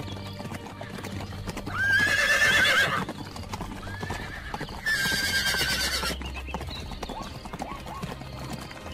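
Horses whinnying: two long, loud neighs with a wavering pitch, one about two seconds in and one about five seconds in, over a running patter of hoofbeats.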